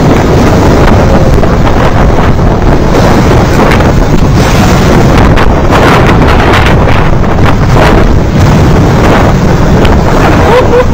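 Continuous loud rushing rumble of a debris flow, a mass of rocks and mud grinding down a mountain channel, mixed with wind buffeting the microphone.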